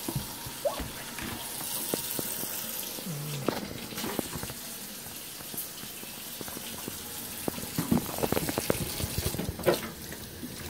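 Kitchen tap running into a stainless-steel sink as a child washes soapy hands under it. A run of short clicks and knocks comes in the last few seconds.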